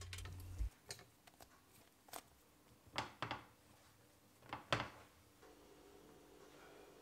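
Dough being kneaded by hand on a countertop: about seven faint, soft knocks and taps at uneven intervals.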